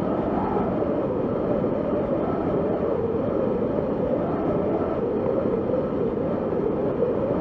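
Wind blowing steadily, a dense rushing noise with a hollow howl whose pitch slowly rises and falls.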